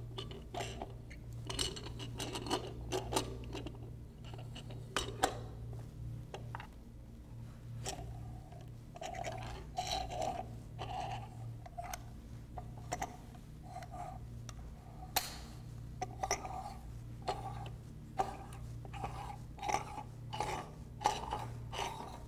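Metal mandrel mount of a laser tracker being screwed by hand onto a threaded 3.5-inch metal ring: irregular metal-on-metal scrapes and light clicks as the threads turn and the handles knock.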